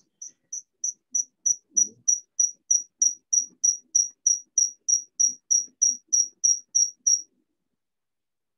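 High-pitched electronic beeping, short even beeps about three a second, getting louder over the first second or so, then stopping abruptly about seven seconds in.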